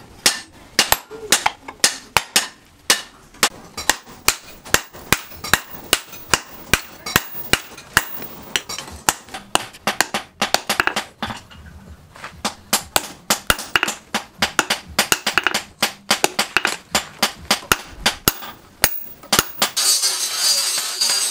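Hand hammer striking red-hot leaf-spring steel on a steel post anvil: a run of sharp metallic blows, about two to three a second. Near the end the blows stop and a dense, steady hiss takes over.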